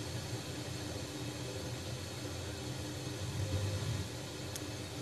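Steady hiss with a low hum from a Mercedes-Benz Sound 10 car radio as its FM tuner scans up the band between stations, with a faint click near the end.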